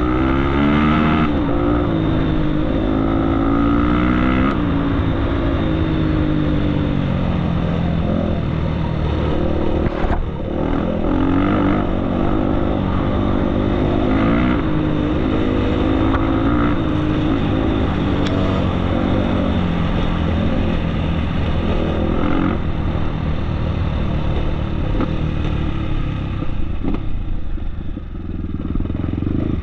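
Off-road trail motorcycle engine running under way, its pitch rising and falling again and again as the throttle opens and closes, with a brief dip about ten seconds in and again near the end.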